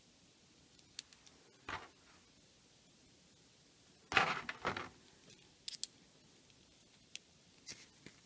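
Small hard-plastic action-figure parts being handled and pressed together: scattered light clicks and taps, with a louder cluster of clacks about halfway through.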